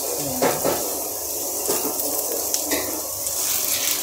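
Onion and tomato frying in oil in an aluminium cooking pot, a steady sizzle broken by a few light clinks.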